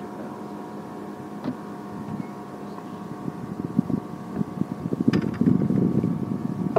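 A small electric motor on a bass boat humming steadily. From about halfway through, louder uneven rumbling and a few knocks join it, with a sharp knock about five seconds in.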